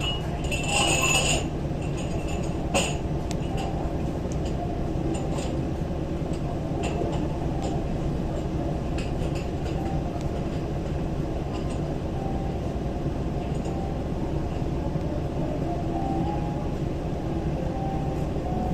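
Steady low rumble of a cruise ship's engines heard on board, with a few short clinks in the first three seconds.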